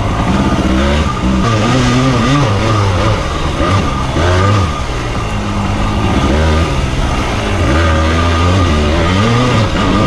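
Two-stroke dirt bike engine revving up and down over and over as the throttle is opened and closed while riding.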